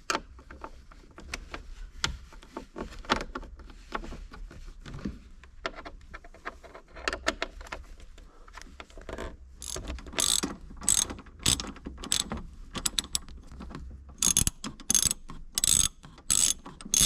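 A ratcheting hand tool clicks in short runs as it backs out the screws that hold a car radio unit in the dashboard, with scattered taps and knocks. The clicking grows louder and sharper about halfway through.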